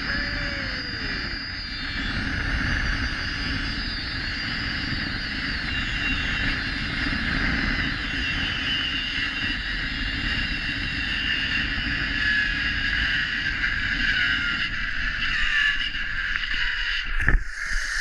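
Zip-line trolley pulleys running along the steel cable: a steady whine with wind rushing over the microphone. Near the end a sharp clunk as the trolley hits the brake at the landing platform.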